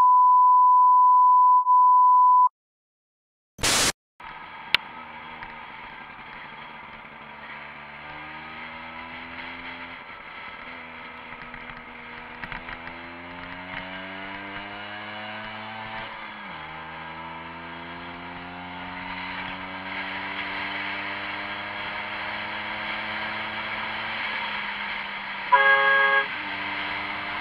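A steady beep tone, a censor bleep, for the first two seconds or so. Then a motorcycle engine pulls up through the gears, its pitch rising and dropping back at each shift, over wind noise. A vehicle horn sounds briefly near the end.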